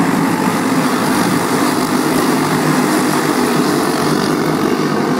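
A pack of dirt-oval racing go-karts with Briggs & Stratton Animal single-cylinder four-stroke engines running flat out together, a steady drone of many small engines at once.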